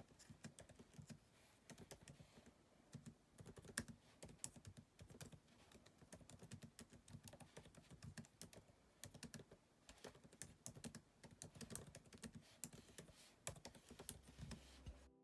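Typing on a 2020 MacBook Pro 13-inch's built-in scissor-switch keyboard: soft, quick, irregular key clicks with a few short pauses.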